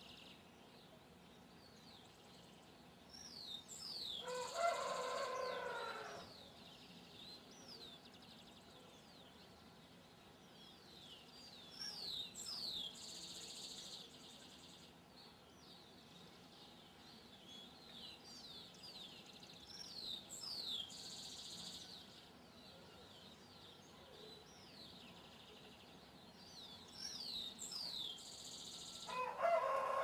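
A rooster crowing twice, once about four seconds in and again near the end. Around it, a small songbird repeats a short song of quick downward-sweeping high notes every eight seconds or so.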